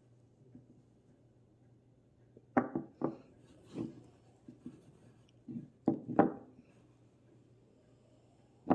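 Small plastic toy figure being tapped and set down on a cloth-covered tabletop, a series of light knocks in two clusters and one more near the end, as the figure will not stand up well.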